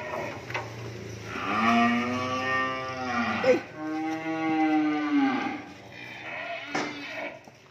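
A cow mooing: two long moos, one after the other, the second a little higher in pitch.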